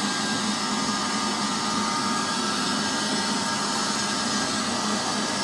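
Hobart 115-volt MIG welder's wire-feed motor running steadily while the gun trigger is held, driving fresh welding wire through the rollers and hose to the gun.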